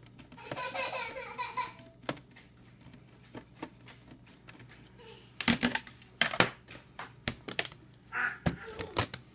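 Sharp clicks and taps of a screwdriver working small screws and of the metal-framed laptop LCD panel being handled, loudest in a cluster about five and a half to six and a half seconds in. A brief background voice comes near the start.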